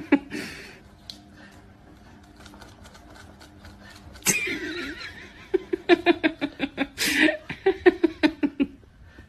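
A person laughing off camera. Laughter breaks out a little past the middle and runs as a quick string of short bursts, about four a second, until near the end.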